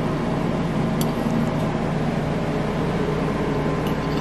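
Steady mechanical hum with a faint hiss, with a couple of faint light clicks.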